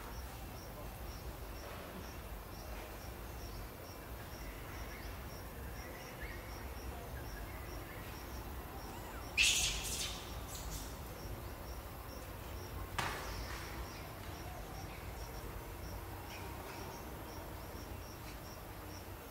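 Outdoor ambience with an insect chirping in an even rhythm, about twice a second. A brief, sharp, high sound cuts in about halfway through, and a weaker one follows a few seconds later.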